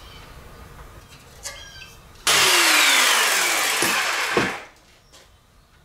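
Power saw cutting a strip of aluminum sheet for about two seconds, starting suddenly, its pitch falling steadily through the cut before it stops. A light metal clink comes shortly before the cut.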